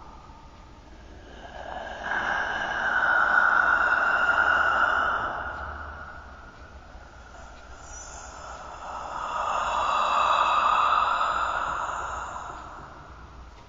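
Dark, breathy whispering sound effect that rises and fades away in two long swells, each lasting several seconds.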